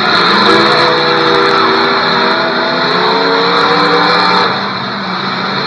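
Demolition derby car engines revving hard at several different pitches as the cars push and ram in a cluster, with sharp crackling noises in the first second or so and again a little before the end.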